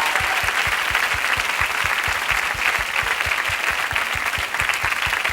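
Concert audience applauding after a song, a dense, steady clapping, with a regular low thumping beat several times a second underneath.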